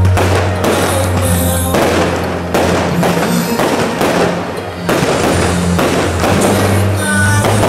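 Aerial firework shells bursting and crackling in quick succession, over loud music with a steady bass line.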